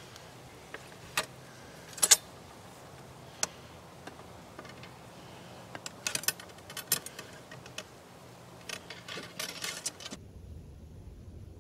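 Sharp metallic clicks and jingling clinks from small gear handled close by, a few single ones at first, then quick clusters, stopping abruptly near the end.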